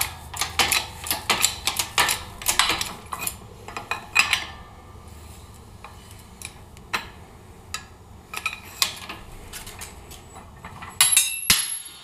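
Hammer blows on the studs of a steel axle backing plate, driving the studs out. About three sharp metallic strikes a second at first, then scattered single knocks, and a ringing metal clatter near the end.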